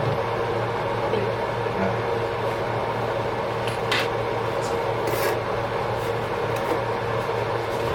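Sliced beef sizzling in a frying pan: a steady frying hiss over a low hum, with a couple of brief sharp scrapes or clicks around the middle.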